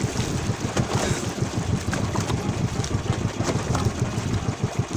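Wind rumbling on the microphone over the wash of sea water around a small fishing boat, a steady uneven noise.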